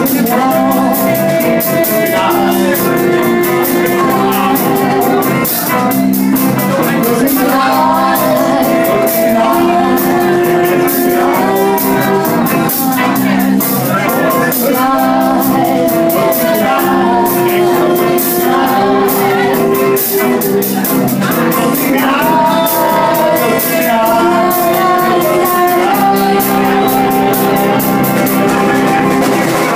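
A song playing: singing over guitar with a steady beat.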